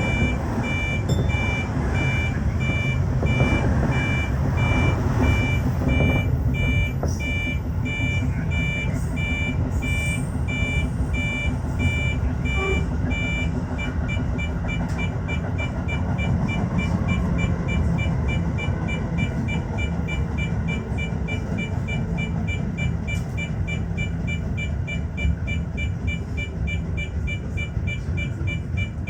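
Tokyo Metro 15000-series train running into Urayasu station and stopping, a steady low rumble. Over it a high electronic beep repeats, slowly for the first half, then in quicker short pips about halfway through as the train comes to a stop.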